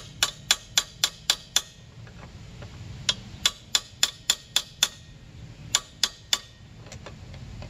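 A hammer tapping the handle of a crescent wrench on a motorcycle's rear axle castle nut: sharp metallic taps in three quick runs, about seven, then seven, then three, at roughly four a second. Each run nudges the nut round to line a castle slot up with the cotter-pin hole.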